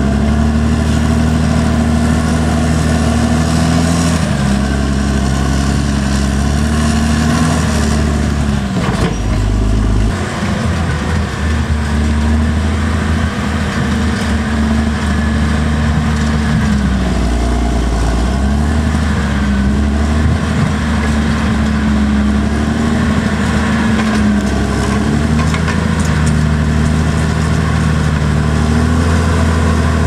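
Caterpillar D6R XL bulldozer's diesel engine running hard as the blade pushes a load of dirt and rocks, its note dipping and rising again several times.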